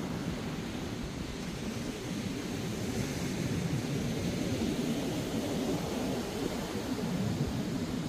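Ocean surf breaking and washing up the beach in a steady rush, mixed with low wind rumble, swelling slightly about two-thirds of the way through.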